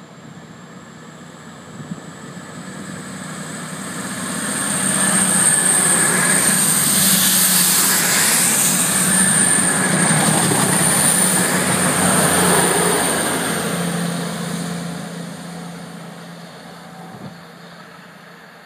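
East Midlands Trains Class 222 Meridian diesel-electric multiple unit running through the station at speed without stopping. Its engine and wheel-on-rail noise builds over about five seconds, holds loud as the carriages rush past, then fades as the train draws away.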